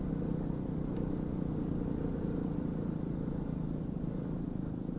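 Suzuki Smash motorcycle's single-cylinder four-stroke engine running at a steady speed while being ridden, a low, even drone that does not change.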